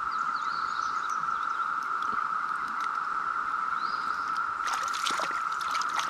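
Steady, even-pitched drone of a Brood X periodical cicada chorus over the trickle of a shallow stream. Near the end come a few short water splashes from a trout being handled in a landing net.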